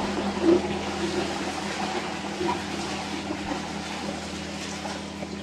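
Steady running water with a constant low hum underneath and a few soft knocks.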